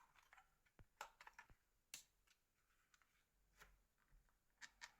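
Faint, scattered plastic clicks and taps from a Nokia 3650 mobile phone being handled and its snap-on front cover taken off, with a cluster of light clicks about a second in and a few more near the end.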